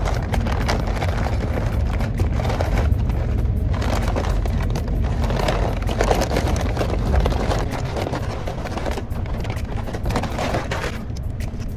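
Brown paper takeout bag rustling and crinkling close to the microphone as hands dig through it, with low thumps from handling.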